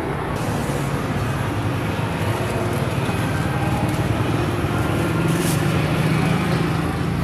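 Street traffic: motor vehicle engines running, a steady rumble, with one engine's hum growing louder about five seconds in.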